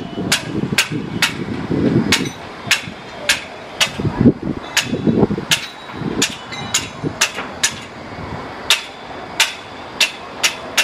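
Sharp knocks repeating about twice a second, not quite evenly, like hammering, over a low rumble that swells and fades.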